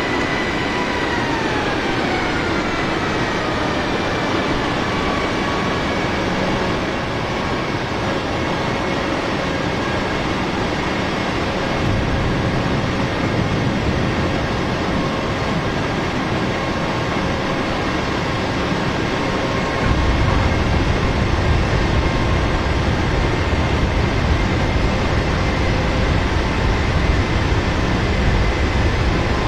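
Jet airliner cabin noise during a landing approach: a steady rush of air and engine noise with faint engine whine, the whine falling in pitch over the first few seconds as the engines throttle back. A low rumble grows louder about twelve seconds in and steps up again near twenty seconds.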